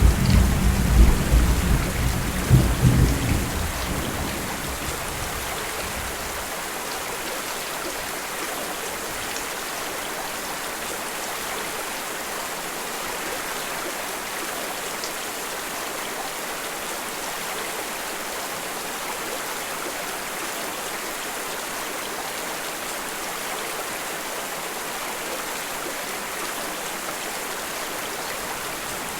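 Steady rain, with a low thunder rumble that dies away over the first few seconds.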